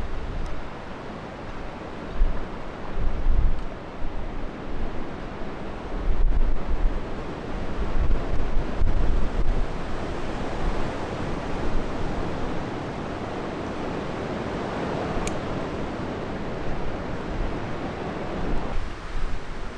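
Storm wind buffeting the microphone in gusts, under the broad rushing noise of a jet airliner passing low on approach, which builds through the middle and cuts off abruptly near the end.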